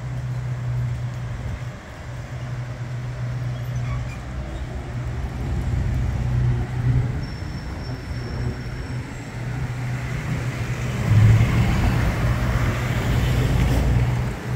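Road traffic: cars driving past on the street, with one vehicle passing close and loudest about eleven seconds in.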